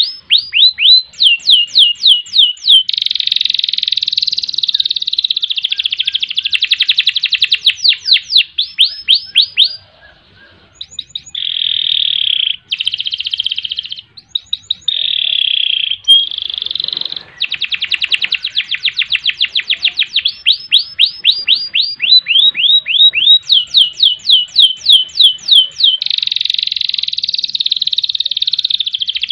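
Domestic canary singing a long song: runs of fast repeated falling whistled notes alternate with dense, rapid rolls. There is a short pause about ten seconds in.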